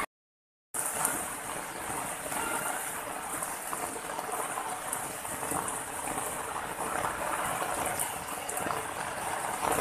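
Steady rush of water running over rocks, cutting in after a moment of silence at the very start.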